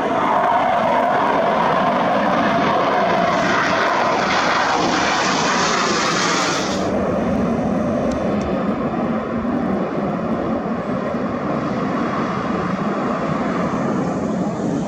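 MiG-29 fighter jets' twin RD-33 turbofan engines running loud, a dense jet rush with a bright hissing top. About seven seconds in the high hiss cuts off sharply, leaving a lower, duller rumble.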